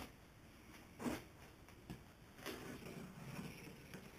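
Faint handling noises: a few light clicks, then a rustling scrape for a second or two near the end, as of hands and a camera moving against a plastic cable drag chain.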